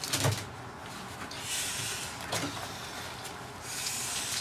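Plastic bucket knocked over and dragged on the kennel floor: a knock near the start, then two spells of scraping, one in the middle and one near the end.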